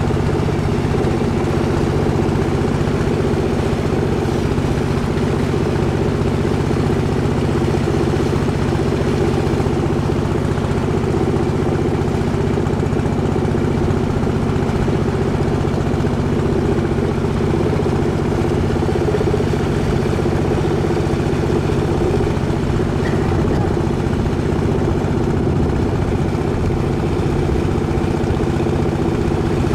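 Boat engine running steadily at a constant speed, a loud, even low drone that neither rises nor falls.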